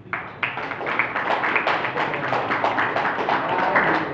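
Audience applauding: a group of people clapping, starting suddenly just after the start and carrying on densely.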